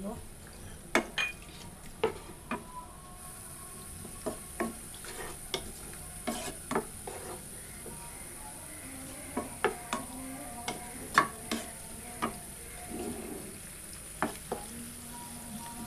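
Chopped onions frying in ghee and oil in a nonstick pan, with a steady sizzle that gets louder about three seconds in. A utensil stirring them knocks and scrapes against the pan in frequent sharp clicks.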